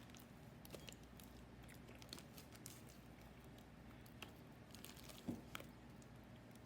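Faint, scattered sticky clicks and squelches of glue-and-activator slime being worked and mixed, with a slightly louder snap a little past five seconds in.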